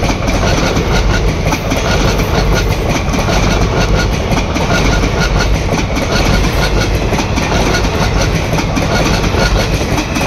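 Passenger train coaches passing close at speed: loud, steady rumble of wheels on rail with a fast clatter of wheels over the rail joints.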